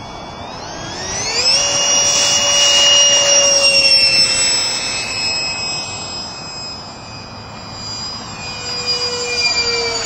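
70 mm electric ducted fan with a brushless outrunner motor in a foam RC F-4 Phantom jet, spooling up to full power with a sharply rising whine about a second in for the takeoff run. It then holds a steady high-pitched whine that slowly drops in pitch and fades a little, swelling louder again near the end as the jet flies by.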